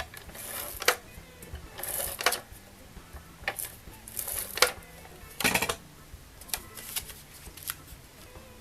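Cardstock and paper being handled on a craft table: irregular sharp taps and clicks mixed with short papery rustles and swishes, about a dozen in all. Faint background music underneath.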